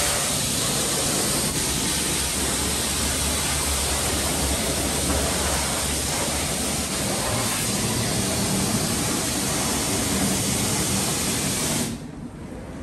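Self-service car wash pressure-washer lance spraying water onto a dirt bike: a steady hiss of spray with a low hum underneath, cutting off suddenly near the end.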